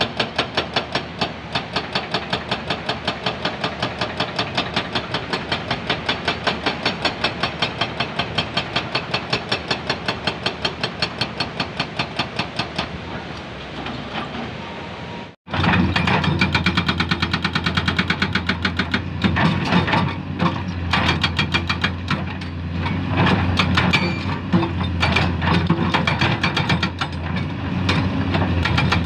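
Excavator at work on limestone. First comes a rapid, even knocking, about four or five strikes a second, which fades out. Then, after an abrupt cut, a diesel excavator engine runs under load with irregular knocks and scrapes.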